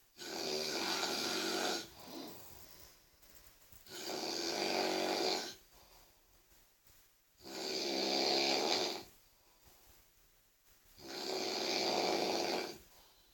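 Very loud snoring from a sleeping person: four long snores, each about one and a half seconds, coming roughly every three and a half seconds, with much quieter breathing between them.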